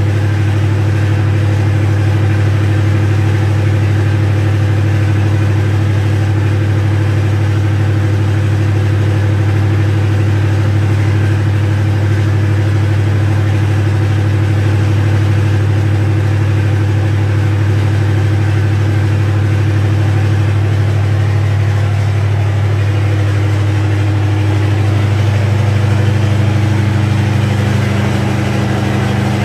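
MTU diesel generator set running steadily during a load test, a loud, even low hum. Its note shifts slightly about 25 seconds in.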